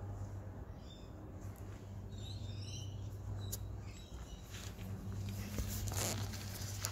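Faint bird chirps: a few short high notes about a second in and again around two to three seconds in, over a steady low hum. Brief rustling near the end.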